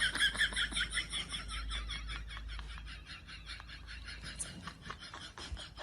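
An animal's rapid run of short high-pitched chirping calls, about five a second, growing fainter after a few seconds.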